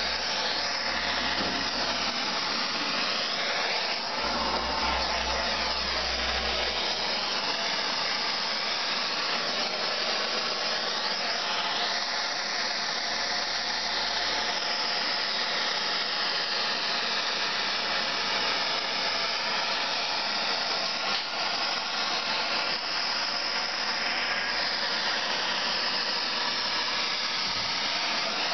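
Handheld gas torch burning with a steady hiss, its tone slowly shifting, as its flame heats the carrier ring of a BMW motorcycle rear brake disc to loosen it from the disc.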